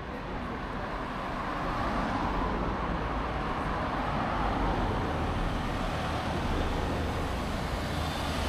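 Road traffic on a city street: a car passes close by with a rushing tyre sound that swells from about two seconds in, followed by a van approaching, over a low steady rumble.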